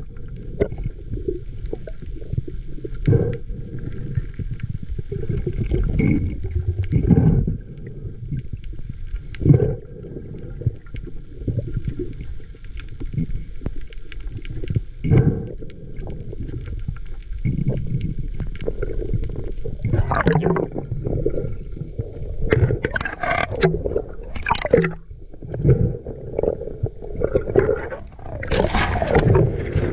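Underwater sound heard through a camera's waterproof housing: a low muffled rumble with repeated dull knocks. From about twenty seconds in, bubbling and splashing grow as the camera nears the surface.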